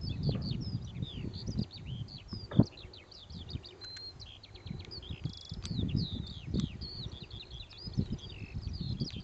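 Several songbirds chirping and singing at once, their short high calls overlapping, over an uneven low rumble. A single sharp knock comes about two and a half seconds in.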